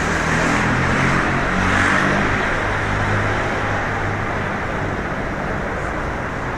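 Steady city road traffic: vehicle engines humming low and a continuous rush of traffic noise.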